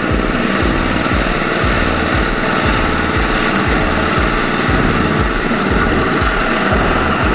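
Single-cylinder diesel engine of a two-wheel walking tractor chugging under load in a steady low beat, about three thumps a second, with a Kubota combine harvester's engine running close behind in a continuous drone.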